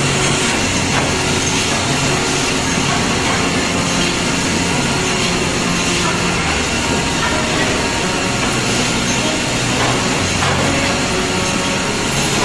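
Woodmaster WM-260 high-speed chalk-mark defect-cutting saw running, its belt conveyor and feed rollers moving a wooden board along: a steady, even machine noise without distinct cuts.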